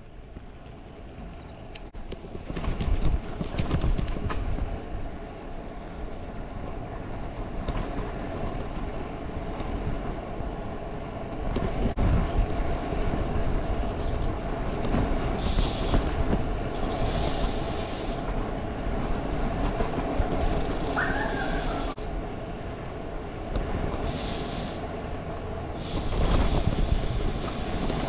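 Riding noise of a folding bicycle on a paved road: steady wind rumble and tyre hum, with a few louder rattling knocks over bumps.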